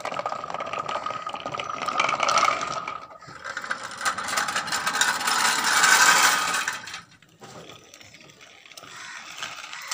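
Toy tractors rattling and clicking over a rough concrete floor: a rapid mechanical chatter in two long stretches, loudest about six seconds in, then fainter for the last few seconds.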